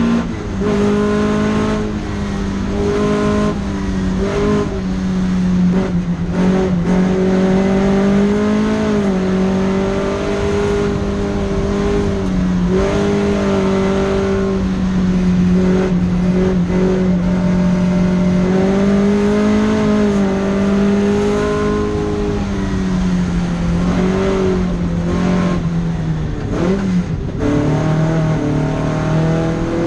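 Datsun Fairlady 2000 (SR311) with its 2.0-litre inline-four running hard at high revs on a circuit. The engine note holds steady with small rises and falls, and dips briefly several times as the throttle lifts or gears change, most clearly near the end.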